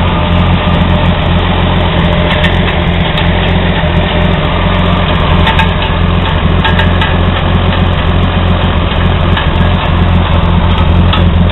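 Old Chevy stovebolt inline-six engine idling steadily, with scattered light ticks over the steady low running note.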